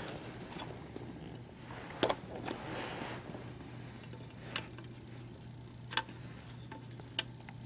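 A few sparse, light clicks of a screw and a plastic radio dash-kit bracket being handled, over a steady low hum.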